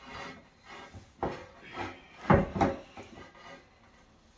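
A few separate knocks and bumps, the loudest a pair in quick succession a little past two seconds in.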